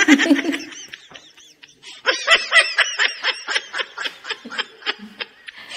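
An elderly woman laughing. A short laugh comes at the start, then from about two seconds in a long run of quick, high giggles, about four a second.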